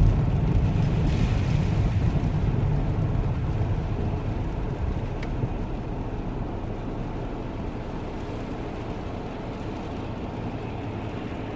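Road traffic on a rain-wet street: a steady low rumble with tyre hiss that slowly fades away.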